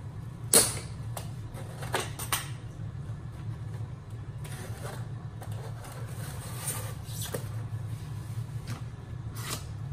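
Handling noise as packed supplies and a small cardboard box are pulled out from inside the housing of a Reef Bot: a sharp knock about half a second in, two lighter knocks around two seconds, then scraping and rustling with a few light clicks, over a steady low hum.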